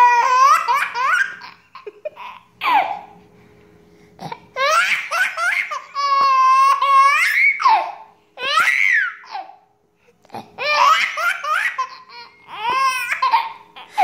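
A baby laughing in repeated high-pitched peals, some held long, separated by short breaths and pauses.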